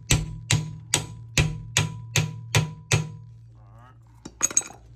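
Hammer tapping a bushing into the rear leaf spring eye of an EZGO golf cart: about eight even strikes at roughly two and a half a second, stopping about three seconds in, then a few lighter knocks near the end.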